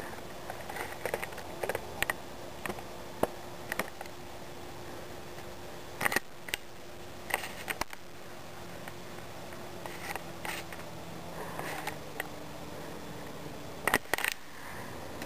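Handling noise from a handheld phone camera: scattered clicks and taps over a faint steady hum, with a cluster of louder taps near the end.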